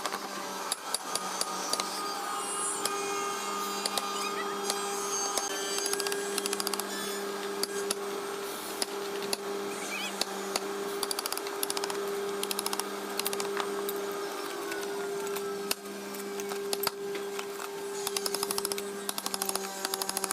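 Woodworking tool sounds: a steady motor hum runs throughout, with scattered sharp knocks and taps on wood.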